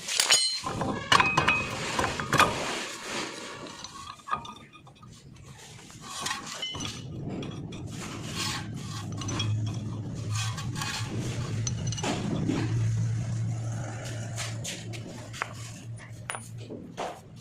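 Metal tools and brake parts clinking and knocking against each other in a burst of sharp strikes near the start, with occasional clinks after. A steady low hum comes in about halfway through and fades near the end.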